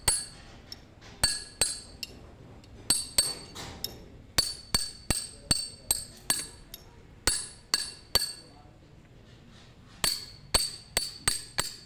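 Steel pipe tapping a flat steel bar held on a double-lip oil seal, driving the seal into a harvester drive sprocket hub until it sits level with the gear. The sound is a series of sharp ringing metallic clinks in quick runs, with a pause of about two seconds two-thirds of the way through.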